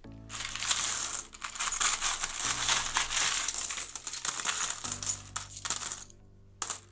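Loose metal coins clinking and rattling against each other as a hand rummages through a tub of mixed coins, continuous for about six seconds, then one short clatter near the end.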